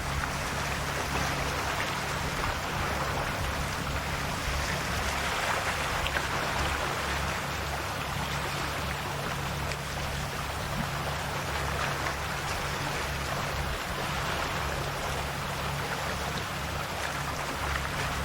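Calm, small sea waves washing and lapping steadily at the shore, a continuous watery wash that swells gently every few seconds. A low steady hum sits underneath.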